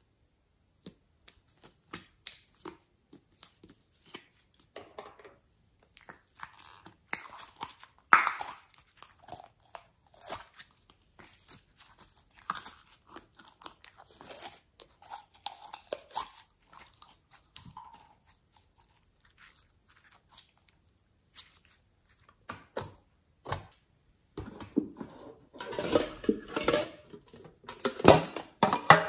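Hands handling small plastic toy containers: scattered clicks, taps and crinkly rustles as a clear plastic lid is pulled off and the toy is squeezed. In the last few seconds the handling turns denser and louder as a tin case is opened.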